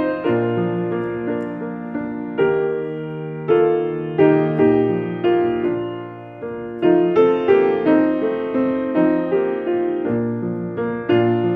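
Slow, gentle piano music: chords and a simple melody, each note struck and left to ring, about one or two a second.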